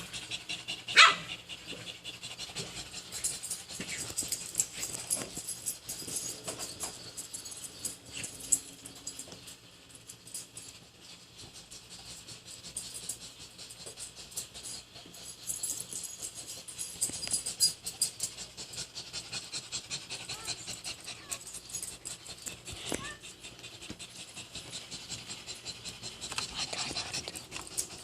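A dog barking, loudest once about a second in, amid many quick clicks and rustling.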